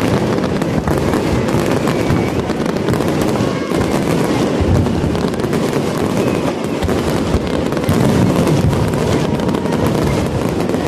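Aerial fireworks shells bursting in a dense, unbroken barrage: low booms merging with continuous crackling from many shells at once.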